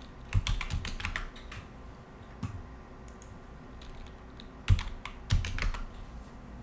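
Computer keyboard typing in two short bursts of quick keystrokes, with a single keystroke between them.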